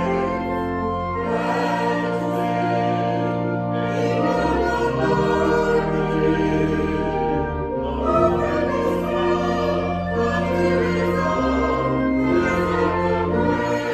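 Choir singing a slow sacred piece, held chords over a low bass line that change every second or two.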